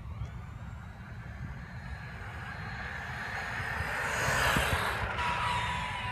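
Losi Baja Rey 1/10 RC desert truck's electric motor and drivetrain whining as the truck speeds up, the pitch rising to a peak about four seconds in and then falling as it slows. Under it is a steady rumble of tyres on pavement and wind on the onboard camera.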